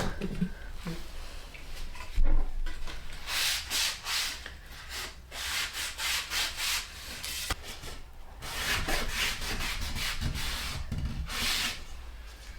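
Wood being sanded by hand with quick back-and-forth strokes, in two runs: about three to five seconds in, and again from about eight and a half seconds until near the end.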